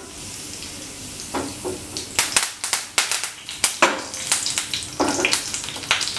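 Curry leaves sizzling in hot coconut oil in a frying pan. A steady hiss for about two seconds, then sharp crackles and spatters as the leaves fry.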